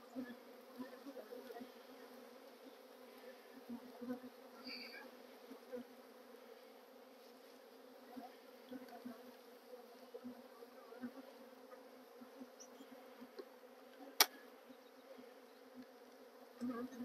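Russian honeybees humming steadily around an open hive being worked, with a few light knocks and one sharp click about fourteen seconds in.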